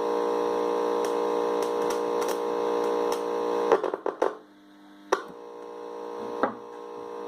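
Amplifier hum through the speakers: a loud, steady mains hum with many overtones, caused by a disconnected ground line. About three and a half seconds in it breaks up with crackles and cuts out, leaving a much fainter hum and a few sharp clicks.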